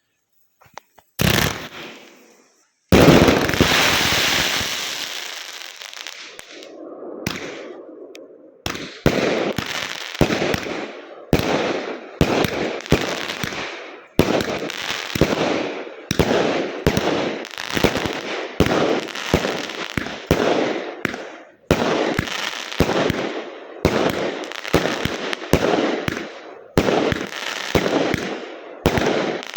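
Fireworks going off: a bang, then a long loud burst about three seconds in that slowly dies away, then from about nine seconds in a steady series of bangs, one or two a second.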